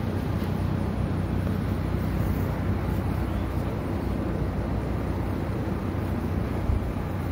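An engine running steadily: an even, low rumble with a faint hum.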